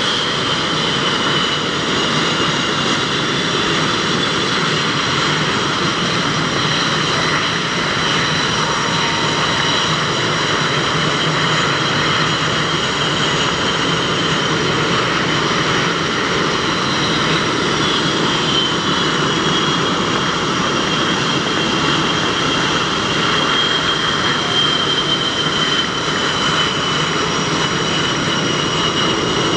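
Several F/A-18 Hornet jets taxiing, their twin General Electric F404 turbofans running steadily at low power with a high, drawn-out whine that sinks slightly in pitch near the middle.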